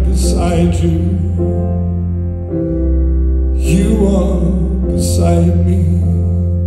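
Live song on grand piano and electric bass guitar, with long held bass notes under piano chords and a man singing phrases over them.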